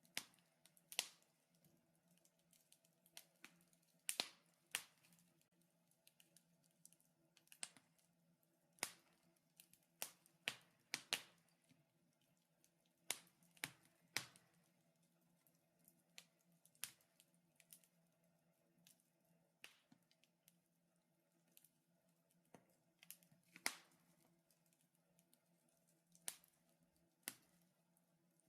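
Wood fire crackling in a fireplace: scattered sharp pops and snaps at an uneven pace, a few every second or two, over a faint steady hum.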